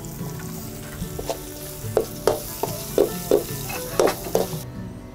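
Pork pieces sizzling in sauce in a hot wok while a metal ladle stirs them, knocking and scraping against the pan about nine times in quick succession from about a second in. The sizzling cuts off suddenly near the end.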